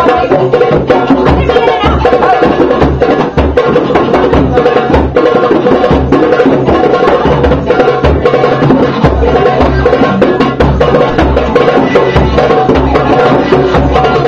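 Hand-drum circle: djembes played in a quick, steady rhythm of sharp slaps and deep bass strokes, with an electric guitar playing along.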